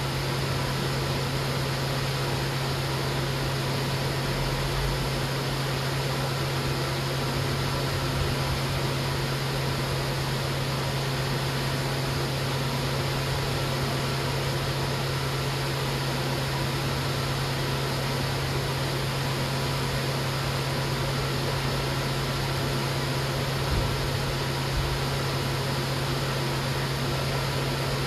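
Steady low machine hum over an even hiss, unchanging throughout.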